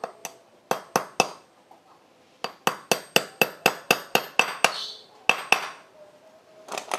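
Sharp metallic clinks of tools on engine parts: a few single strikes, then a quick even run of about a dozen at roughly five a second, then two more a little apart.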